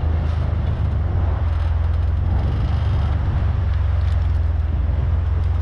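Jeep engine running steadily at low speed, a constant low rumble while the Jeep crawls over a log, with an even background hiss.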